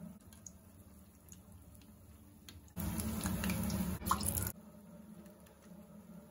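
Hot oil sizzling as egg bondas deep-fry in a kadai: a faint crackle with scattered popping ticks, then a much louder burst of sizzling for about a second and a half in the middle that starts and cuts off abruptly.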